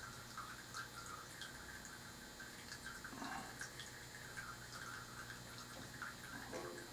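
Faint room tone: a steady low hum with scattered small ticks and a couple of soft brief rustles.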